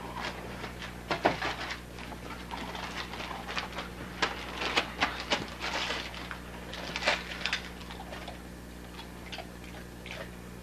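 Dogs tearing and crinkling gift wrapping paper with their mouths and paws: irregular rustles, rips and crackles, busiest in the first seven seconds and thinning out near the end.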